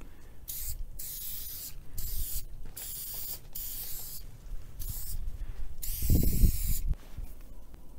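Aerosol spray-paint can hissing in a string of short bursts, the longest and loudest about six seconds in.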